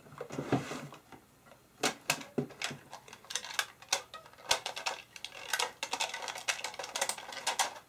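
Handling noise: a soft rustle, then from about two seconds in a dense run of irregular sharp clicks and clatter of small hard objects.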